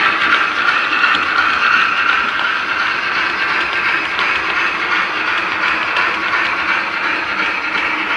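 Model trains running on layout track: a steady mechanical running noise of small wheels and motors, with a few faint clicks.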